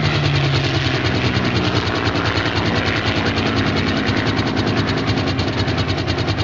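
Loud, steady mechanical noise that pulses rapidly and evenly, with a low hum beneath it.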